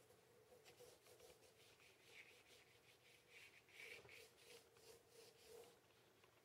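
Faint scratching of a graphite pencil on paper: a run of short, irregular strokes as circles are sketched.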